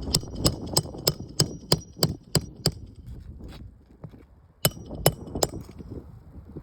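Hammer blows on roofing nails fixing a replacement asphalt shingle. There is a quick run of about nine strikes, about three a second, then a pause and three more, each with a short metallic ring.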